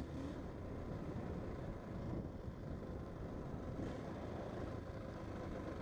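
KTM 640 LC4 single-cylinder four-stroke dirt bike engine running steadily while the bike is under way, mixed with wind rushing over the camera microphone.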